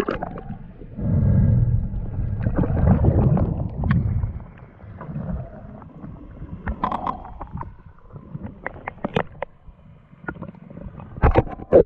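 Muffled underwater sound of a freediver descending: a low rush of water for the first few seconds, then quieter with scattered sharp clicks and knocks, the loudest pair near the end.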